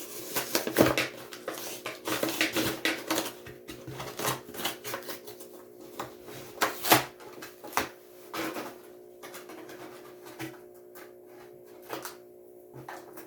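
Hot Wheels blister packaging being opened by hand: irregular crinkling, crackling and snapping of the plastic blister and card, busiest in the first half and sparser later. A steady low hum runs underneath.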